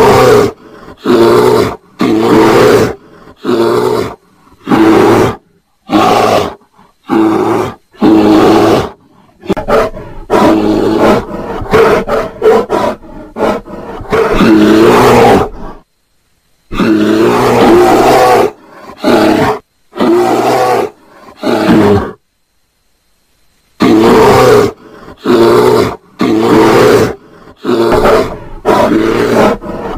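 Bear growling and roaring in a rapid series of short, loud, throaty calls about a second apart, with a longer unbroken run of growling about halfway through and two brief pauses after it.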